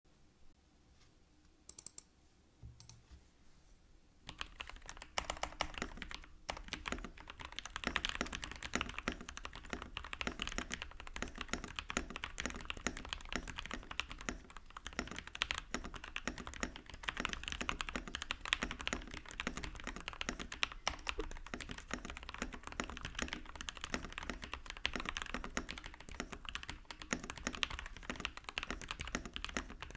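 Typing on a Wuque Studio IKKI68 Aurora gasket-mount mechanical keyboard fitted with ThicThock Konpeitou switches, lubed with 205g0 and filmed: a couple of single keystrokes, then steady fast typing from about four seconds in. Its sound is called creamy.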